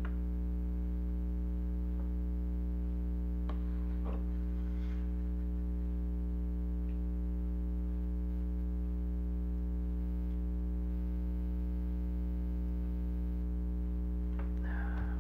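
Steady electrical mains hum, a low buzz with a ladder of evenly spaced overtones, with a few faint clicks a few seconds in.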